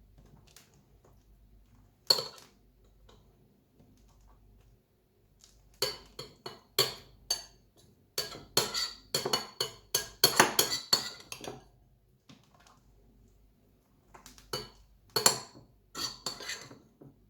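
Metal cutlery clinking and scraping against a dish while serving chopped leftover chicken: one sharp clink about two seconds in, a quick run of clinks in the middle, and another cluster near the end.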